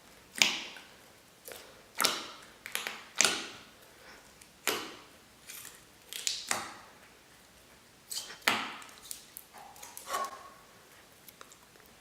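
Thick, creamy slime being squished and poked by hand: a series of sharp, wet pops and squelches, one every second or two.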